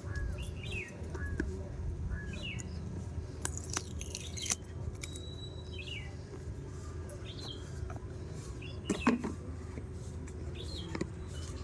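Birds chirping in short calls, one every second or so, over a steady low background rumble, with a few sharp clicks, the loudest about nine seconds in.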